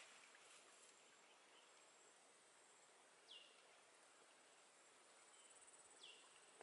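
Near silence: faint outdoor ambience with a thin, steady high insect drone and two short falling bird calls, about three and six seconds in.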